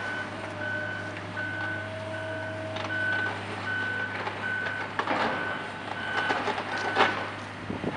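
Construction machine's reversing alarm beeping about twice a second, stopping about seven seconds in, over the steady low hum of diesel engines. Between about five and seven seconds in come sharp crunching crashes of masonry being torn down, the loudest near the end.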